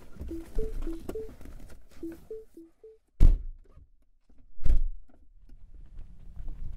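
Two car doors slam shut one after the other, about a second and a half apart. Before them there is a low rumble and a few soft, short tones.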